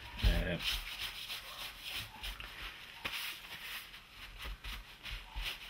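Cloth rag being rubbed briskly back and forth over the aluminium and plastic housing of an ABS module, a run of repeated scratchy wiping strokes. There is a brief, louder low sound about a third of a second in.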